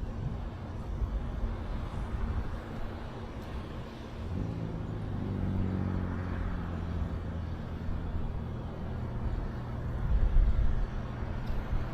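A road vehicle passing, its engine drone coming in about four seconds in, swelling and then fading away over a steady background hiss. A low rumble rises near the end.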